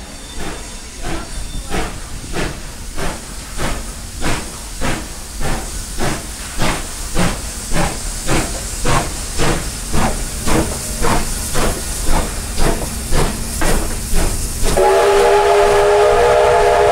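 Steam locomotive working past, its exhaust beating about two times a second and growing louder, then a long steam whistle blast near the end.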